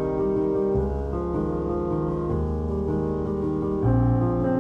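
Background piano music, sustained chords over low bass notes that change every second or so.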